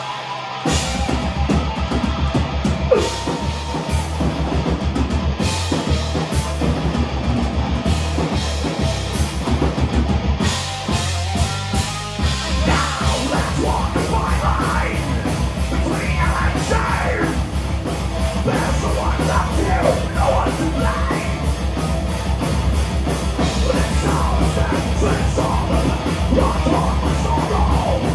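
Heavy metal band playing live. A guitar intro gives way to the full band, with drums and bass, about a second in.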